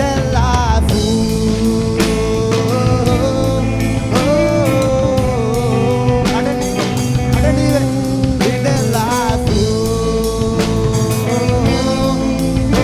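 Live band performance with guitar and drums under a long, sustained lead melody whose notes bend and slide in pitch.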